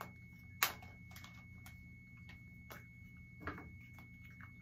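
Scattered small clicks and crinkles of plastic Easter eggs, candy wrappers and basket grass being handled. The sharpest click is about half a second in and another comes about three and a half seconds in, over a faint steady hum.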